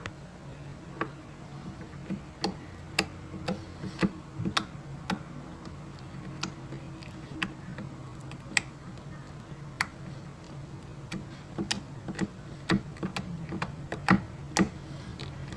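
Glossy slime being worked by hand, making sharp, irregular clicks and pops that come thicker near the end.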